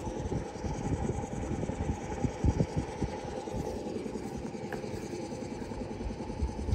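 Wrecker truck's engine idling: a steady low rumbling hum with an irregular throb.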